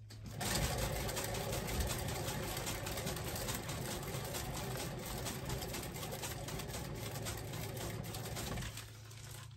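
Paint-pouring spinner turning a wet canvas at speed: a steady whirring rattle that starts about half a second in and stops shortly before the end. A low steady hum runs underneath.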